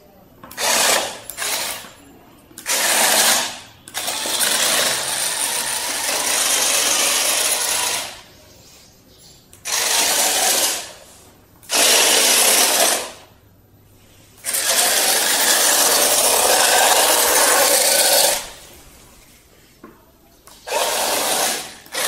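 Homemade remote-controlled robot car's drive motors whirring as it is driven in stop-start bursts, from short blips to runs of about four seconds, its wheels rolling on a stone floor.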